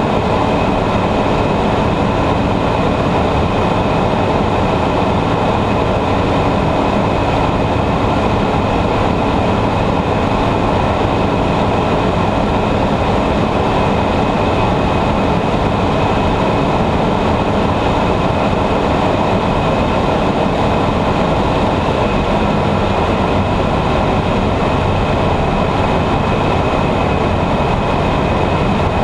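Ultralight aircraft's engine and propeller running steadily in flight, heard from inside the cockpit together with the rush of air: a constant loud drone with a faint steady high tone and no change in pitch or level.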